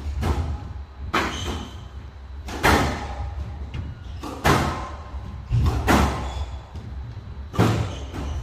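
Squash rally on a glass-walled court: sharp cracks of the ball struck by racquets and smacking the walls about every second and a half, with low thuds of the players' feet on the court floor.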